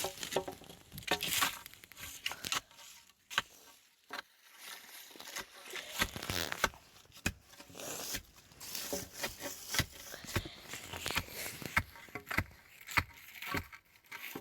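Shovel scraping and dumping soil and dry leaves into a fence-post hole: irregular crunching, scraping and small knocks.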